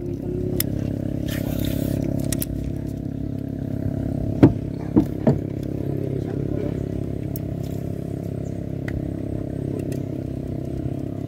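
A small boat's engine starts up and runs steadily at an even pitch, with three sharp knocks about halfway through.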